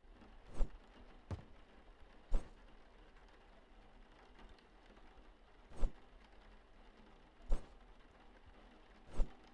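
Six short, sharp knocks at irregular intervals over a quiet background.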